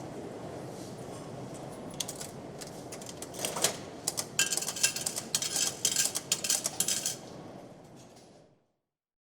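Underground station ticket hall ambience: a steady low rumble of the hall, then scattered sharp clicks that build into a run of metallic clinking and rattling about halfway through. It fades out and stops shortly before the end.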